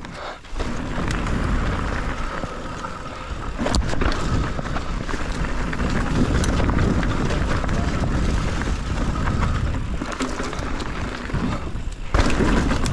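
Mountain bike riding fast down a rough dirt trail: tyres rolling over dirt and rock, bike rattling, with a heavy low rumble of wind on the microphone. A few sharp knocks come from hitting bumps, one about four seconds in.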